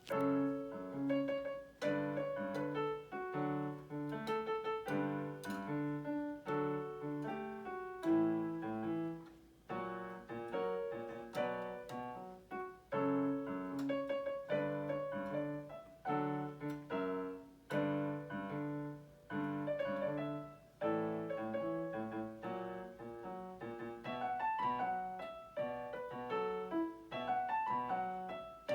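Solo piano playing a pop ballad: steady repeated chords in the bass under a melody line in the upper notes, at a moderate pace.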